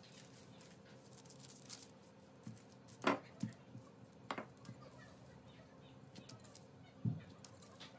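Wooden rolling pin rolling dough out thin on parchment paper on a countertop: quiet rolling with a few soft knocks, the sharpest about three seconds in and another near the end.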